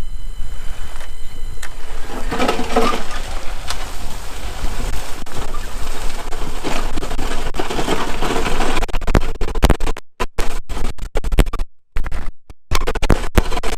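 Wheelchair-mounted snow plow blade scraping and grinding along the ground as the power wheelchair pushes it over the edge of the asphalt, a loud, continuous, irregular scraping noise with several abrupt breaks near the end.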